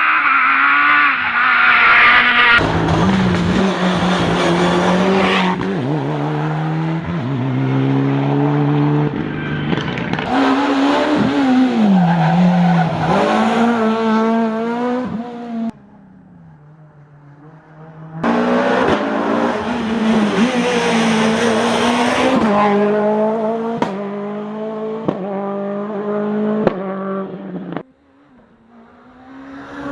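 Rally cars at full speed on a tarmac special stage, engines revving hard and shifting up and down through the gears, with tyre squeal. The sound dips briefly twice, about halfway through and near the end.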